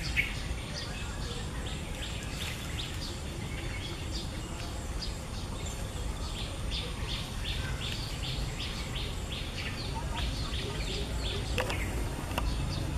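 Small birds chirping in quick repeated runs, about three short chirps a second, over a steady low background rumble.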